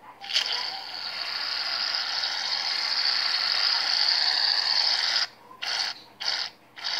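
Aerosol can of Barbasol shaving cream spraying foam: one long steady hiss of about five seconds, then three short spurts.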